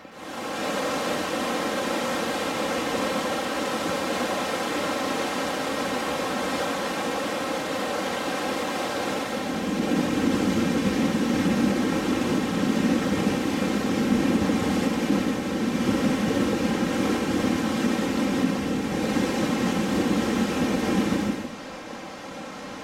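Steady outdoor rushing noise, the kind made by wind and fast-flowing river water, louder through the middle stretch and dropping suddenly near the end.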